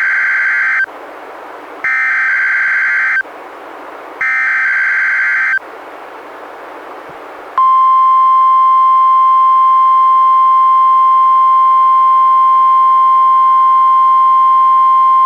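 NOAA Weather Radio Required Weekly Test signal received on a weather radio. It opens with three SAME digital header bursts, harsh two-tone data screeches about a second and a half apart, the first already under way, with radio hiss between them. After a short pause, about halfway through, comes the steady single-pitch 1050 Hz warning alarm tone, which is still sounding at the end.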